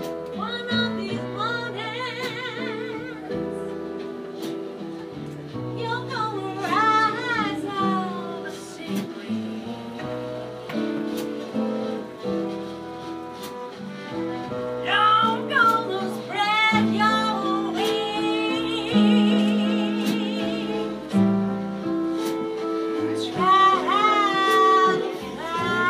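Live acoustic band: a woman sings long, wavering notes over fiddle and acoustic guitar accompaniment.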